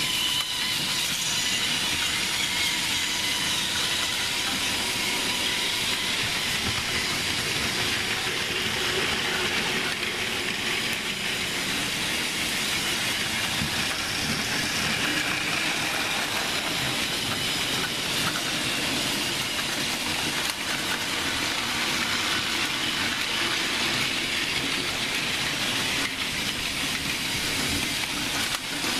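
Battery-powered Plarail toy trains running on plastic track: a steady high whir of their small motors and gearboxes, with faint clicking from the wheels.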